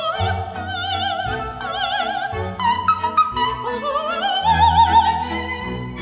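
Operatic soprano singing with a symphony orchestra, holding long notes with a wide vibrato. About four seconds in, her voice slides up into another long high note.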